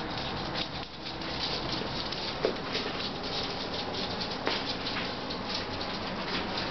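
Ferrets scampering across a laminate floor, their claws making a rapid patter of small clicks, with a couple of sharper clicks in the middle.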